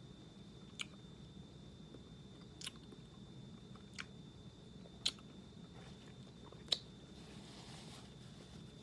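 Quiet chewing of gummy fruit snacks, with a few sharp mouth clicks and smacks spaced a second or two apart, and a soft rustle near the end.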